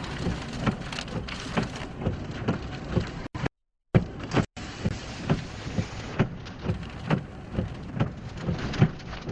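Heavy rain and wind beating on a pulled-over storm-chasing vehicle: a steady rush with irregular sharp taps of drops striking. The sound cuts out briefly about three and a half seconds in.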